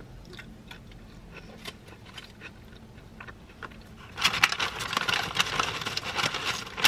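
Chewing a mouthful of burrito with faint wet mouth clicks. About four seconds in, loud crackling rustle of a paper bag as a hand digs tortilla chips out of it.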